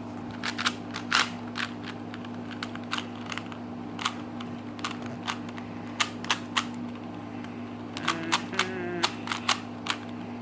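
Rubik's Cube being scrambled by hand: irregular clicks of its plastic layers turning, in quick runs with short pauses, over a steady low hum.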